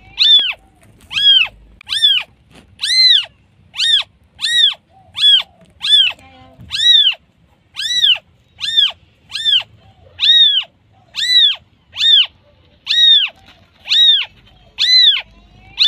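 A newborn kitten meowing for its mother: a fast, insistent series of high, thin cries, each rising and falling in pitch, a little more than one a second.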